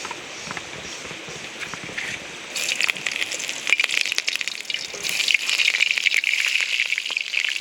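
A low, steady hiss, then about two and a half seconds in a loud crackling sizzle starts suddenly and keeps going: chicken frying in hot oil in a pan.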